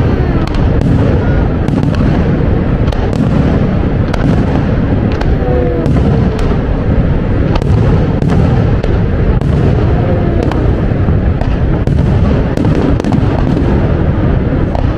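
Aerial fireworks display: shell bursts and crackling in rapid, irregular succession over a constant deep rumble.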